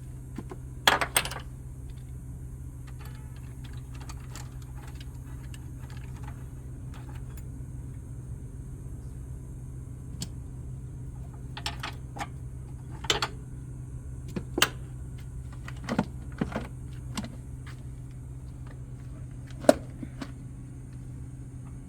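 Scattered clicks, knocks and light rattles of hands and tools working the plastic air filter housing of a 1994 Honda Accord open, a few of them sharp, over a steady low hum.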